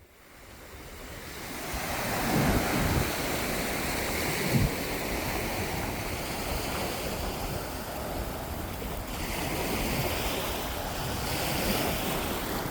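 Caribbean surf breaking on the beach with wind buffeting the microphone, fading in over the first two seconds and then running steadily, with a few low wind thumps.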